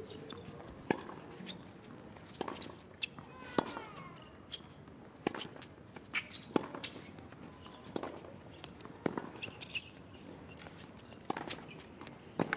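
Tennis rally on a hard court: sharp racket strikes on the ball and ball bounces, about one every second, with shoe noise on the court between them.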